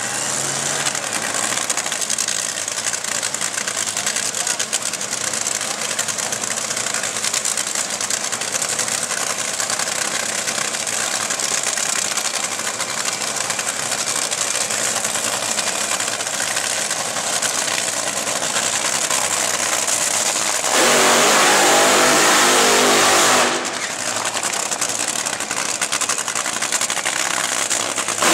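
Loud, steady drag-strip engine noise from racing engines running. About three seconds before the end an engine blasts louder for roughly three seconds, then drops back.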